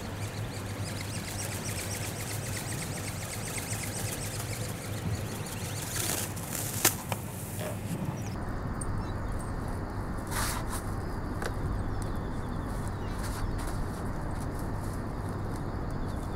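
Steady wind noise rushing over the microphone, with one sharp knock about seven seconds in and a few fainter clicks later.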